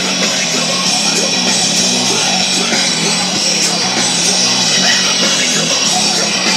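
Loud rock music with a repeating low bass line.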